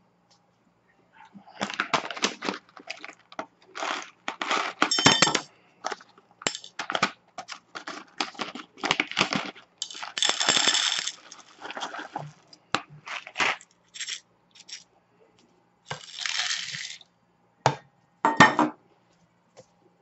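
Whole coffee beans poured from a paper bag into a stainless steel measuring cup: an irregular run of clicks and clinks as the beans strike the metal, coming in uneven spurts.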